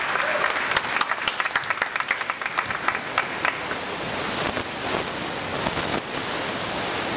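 Scattered hand clapping from a small crowd of spectators in a sports hall, dying away after about three and a half seconds and leaving a steady background hall noise.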